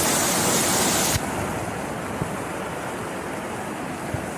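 Floodwater rushing across a street: a steady, loud watery rush. A little over a second in it becomes quieter and duller.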